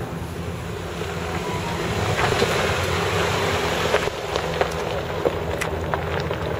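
Jeep Wrangler JK driving slowly past at low revs, its engine a steady low drone that swells as it comes close about two to four seconds in. Its tyres give scattered sharp clicks over the gravel.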